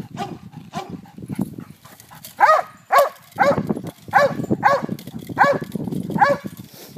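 Large black dog barking at a bite-suited decoy while held back by its harness in protection training: about seven loud, sharp barks in quick succession in the second half, after a couple of quieter seconds of scuffling.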